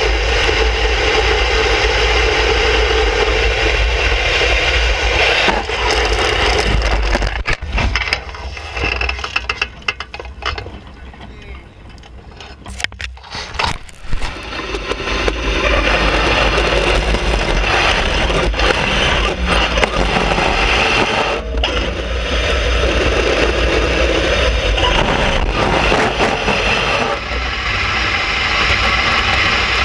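Skimmer ice boat's runners scraping and rattling over the ice, with wind buffeting the boat-mounted microphone as a heavy rumble. About a third of the way in it goes quieter and crackly while the boat is in dry reeds and snow, then the scraping and wind build again.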